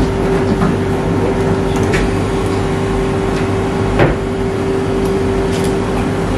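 A steady machine hum carrying one constant tone over a low rumble, with a few light clicks and one sharper knock about four seconds in.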